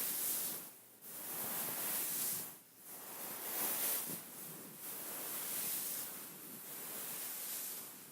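Fingers scratching and rubbing over a beaded pillow: a dry rustling hiss in long strokes, broken by two short pauses.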